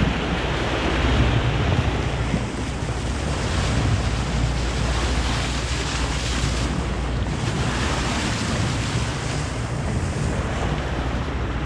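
Steady rush of wind buffeting the microphone over moving water, as the boat runs along with dolphins surfacing beside it; no distinct events stand out.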